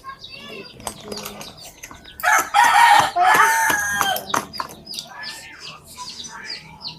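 A rooster crowing once, loudly, for about two seconds starting a little after two seconds in, with small birds chirping around it.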